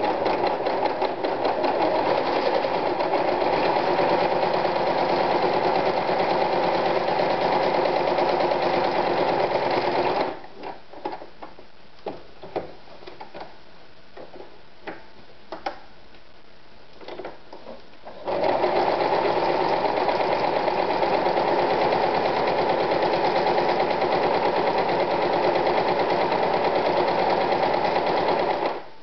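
AEG NM 376 B electric sewing machine sewing at a steady speed for about ten seconds, stopping, then sewing again for about ten seconds more. In the pause there are a few light clicks and knocks.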